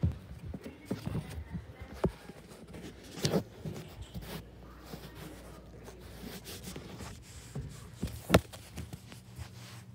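Rustling and footsteps of a phone being carried through a room, with scattered knocks and one sharp knock about eight seconds in.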